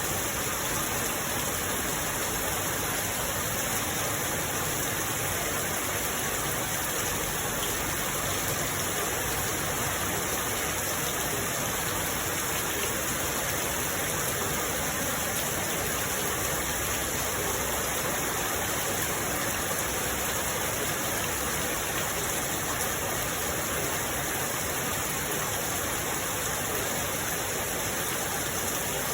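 Steady rain, an even unbroken hiss with no separate drops or thunder standing out.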